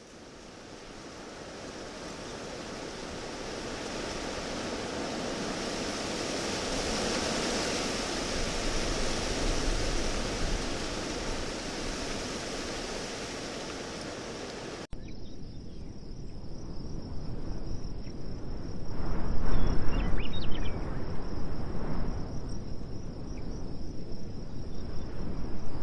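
A steady rushing noise that swells and then fades over about fifteen seconds, then cuts off abruptly and is replaced by a different hissing background with a faint steady high whine and a few soft irregular sounds.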